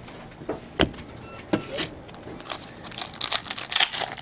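Trading cards being handled over a table: scattered taps and slides of card stock, one firmer tap about a second in, then a denser run of rustling over the last second or so.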